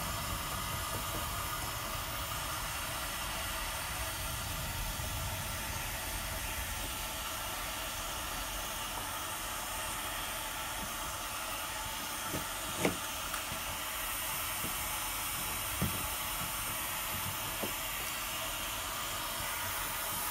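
A 2000 W handheld heat gun blows hot air with a steady hiss on its setting 2. In the second half come a few sharp clicks and scrapes from a chisel lifting the heat-softened paint off the wooden sill.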